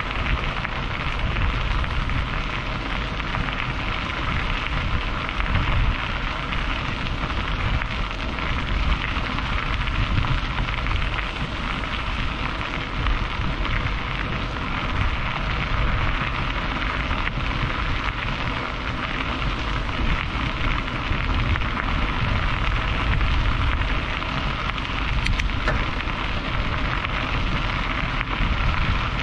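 Steady road and wind noise inside a moving car, a deep rumble under an even hiss that does not change.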